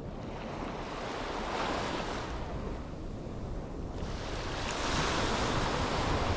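Sea waves breaking and washing up a beach, swelling twice a few seconds apart, with wind rumbling on the microphone.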